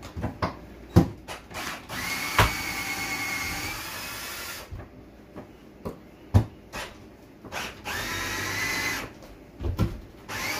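Cordless drill running in two bursts, the first about three seconds long and the second about a second and a half, each with a steady whine, on screws at the edge of a plywood floor. Sharp knocks and clicks fall before and between the runs.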